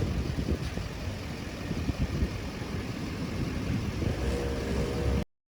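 Heavily loaded pickup truck running, a steady low rumble with irregular low thumps and a humming tone in the last second; it cuts off suddenly about five seconds in.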